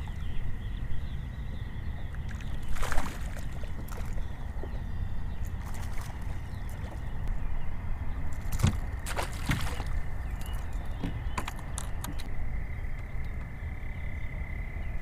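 Fishing-boat ambience on the water: a steady low rumble with a thin steady high whine, and scattered short clicks and knocks of tackle and gear being handled.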